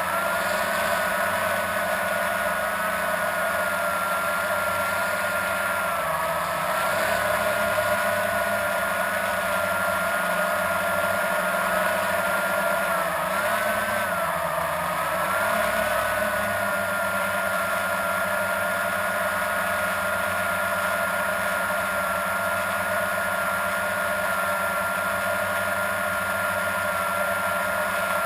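Blade 350 QX quadcopter's electric motors and propellers whining steadily in flight, the pitch dipping briefly a few times as the motors change speed.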